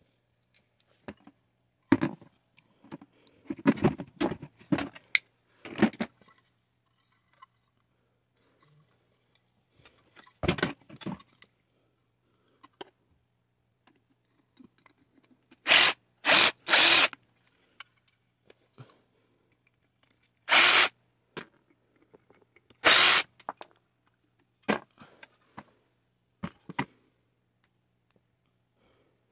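Cordless drill driver running in short bursts, about six in all, three of them in quick succession midway, as it backs screws out of a butane camp stove's brass burner head. Clinks and knocks of the stove's metal parts being handled come in between, most of them early on.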